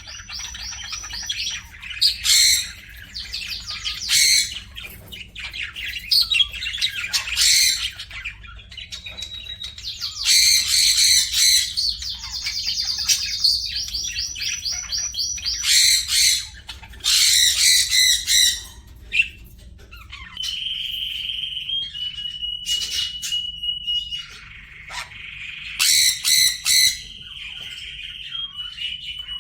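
Pet birds calling: loud, harsh squawks in short bursts every few seconds over steady chirping and trills, with several held whistled notes in the second half.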